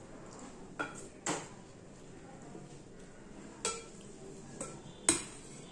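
Metal spoon clinking against a stainless steel bowl as curry is scooped out: about five short, sharp clinks, the loudest near the end.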